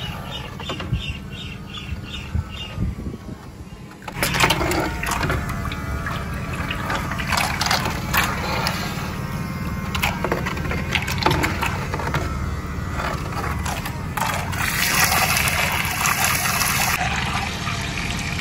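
Small DC electric motor driving the propeller of a homemade model boat, running with a steady low hum while the propeller churns and splashes the water of a tub, with knocks of the hull being handled. From about four seconds in the splashing is louder, with a burst of spray hiss about fifteen seconds in.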